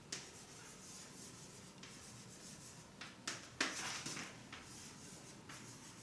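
Faint scratching of writing in short strokes, with a group of louder strokes a little past halfway.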